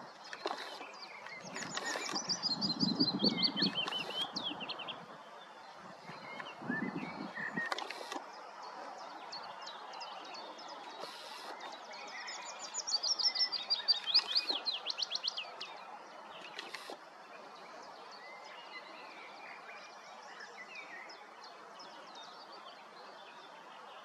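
Willow warbler singing: two phrases of clear, sweet notes that slide down the scale, each about three seconds long, with a third starting at the very end. Other small birds call faintly between phrases, and a low rumble sits under the first phrase and again shortly after.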